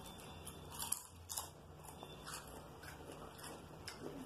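Faint, scattered crunches of potato chips being bitten and chewed.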